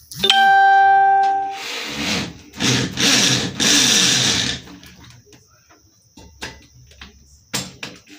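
A single clear ringing note sounds and fades over about a second and a half. Then a cordless drill-driver runs in three short bursts, driving a screw through a metal TV wall-mount bracket.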